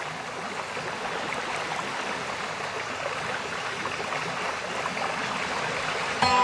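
Steady rushing water ambience, an even hiss. Background music cuts back in suddenly near the end.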